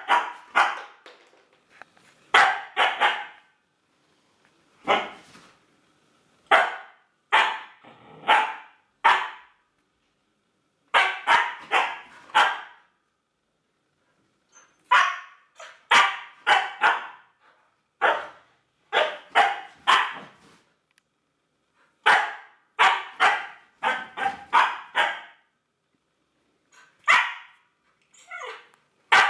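Siberian husky barking in play, in quick runs of two to five short barks separated by pauses of a second or two.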